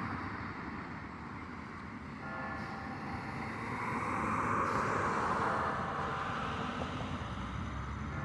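A passing vehicle outdoors, its noise swelling to a peak about five seconds in and then fading.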